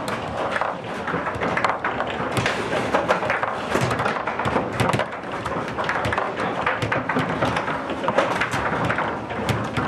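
Foosball game in play: rapid, irregular knocks and thuds as the ball is struck by the plastic figures and the rods are worked.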